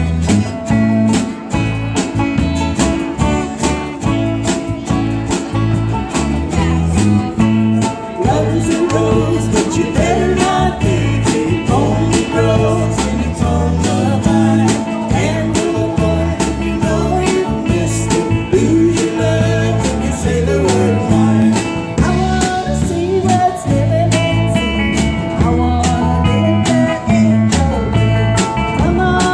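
Live country band playing: banjo, acoustic and electric guitars, electric bass and a drum kit keeping a steady beat, with a voice singing from about eight seconds in.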